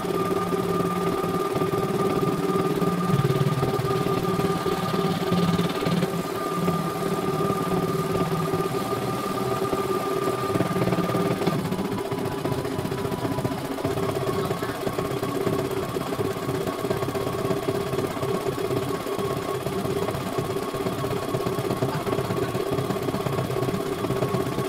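CNY E900 computerised embroidery machine stitching a design: the needle runs in a fast, steady rhythm over a motor hum. Its running tone shifts slightly about halfway through.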